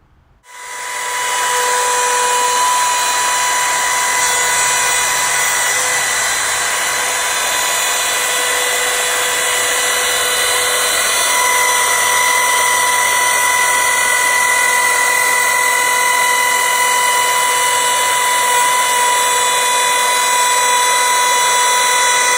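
Trim router running steadily as it cuts a rebate into timber: a high, even whine over cutting noise. It comes up to speed about half a second in and cuts off suddenly at the end.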